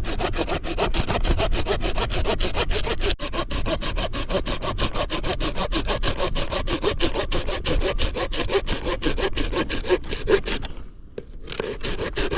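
Folding hand saw cutting through a thick branch, with quick, even back-and-forth strokes. The sawing stops near the end, then a few last strokes follow.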